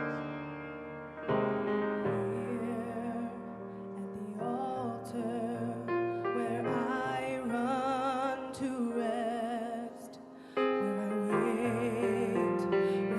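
Piano playing a slow worship song while singers come in about two seconds in, their held notes wavering with vibrato. The music drops away briefly near the end and then comes back in louder.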